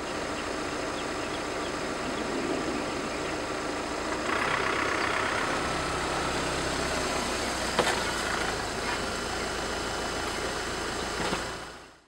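Volkswagen Jetta SportWagen TDI's diesel engine idling steadily, growing louder about four seconds in, with a single sharp click near the end.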